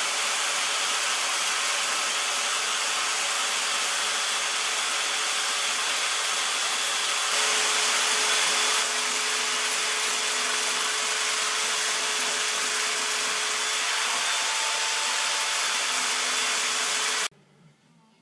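A machine or power tool running steadily, its sound mostly an even hiss with a faint steady hum in it; it cuts off abruptly near the end.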